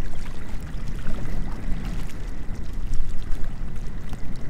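Small waves lapping and splashing against a rocky lake edge, with scattered little splashes, over a steady low rumble of wind on the microphone.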